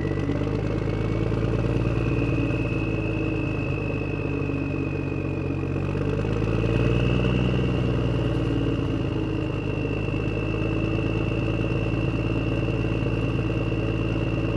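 Backhoe loader engine running steadily at a low speed, with a thin high whine over it. It revs up slightly about seven seconds in, then settles back.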